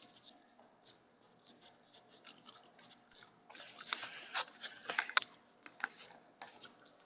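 Close-up eating of a mixed salad: a run of short crackly clicks and scratches, thickest and loudest about halfway through.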